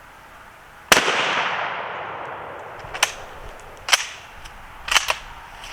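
A single rifle shot from a Model 91 Mosin-Nagant firing 7.62x54R, echoing and fading over about two seconds. A few smaller sharp clicks follow.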